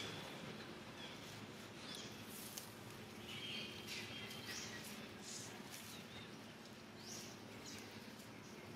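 Newborn long-tailed macaque giving a string of short, high-pitched squeaking calls that rise in pitch, one every second or so, with light crackling of dry leaves.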